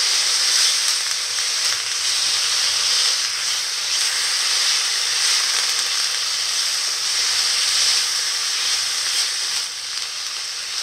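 Raw minced chicken frying in oil with browned onions, sizzling steadily in the pan as it is stirred with a spatula.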